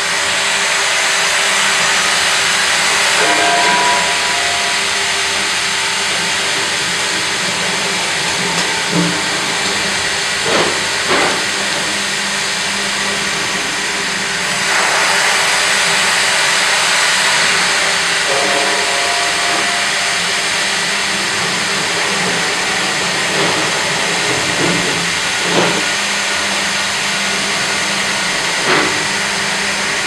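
Fİ.120 hydraulic vertical band saw sawing a log fed on an automatic log carriage: a loud, steady machinery hiss with a thin high whine running through it, and a few short knocks and clunks scattered through.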